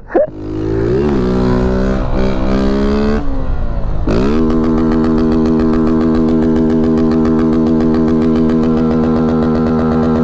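Honda CG 160 Titan single-cylinder engine through a modified tin 'estralador' exhaust with no air filter, running loud under throttle. The revs climb, drop about three seconds in, then rise again about a second later and hold steady at high revs.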